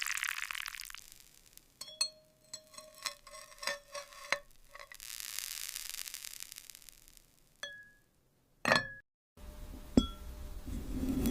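Small glass pieces clinking and tapping: a quick run of about a dozen short, ringing clinks, then a stretch of hiss, and a single louder glassy knock near the end.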